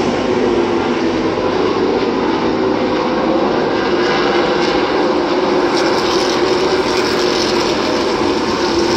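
NASCAR Xfinity Series stock cars' V8 engines running on the track, a loud steady drone of several cars at once.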